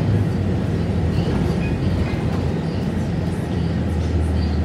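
Volvo B7RLE bus's six-cylinder diesel engine and drivetrain running with a steady low drone, heard from inside the passenger cabin as the bus drives along.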